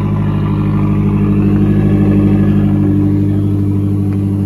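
Car engine running at a steady idle, with a slight swell in level about halfway through.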